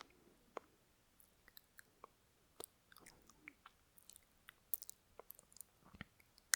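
Lip noise: scattered small wet clicks and smacks of lips and tongue from a mouth close to a binaural microphone, coming irregularly a few times a second. These are the stray mouth noises that are normally cut out of a voice recording.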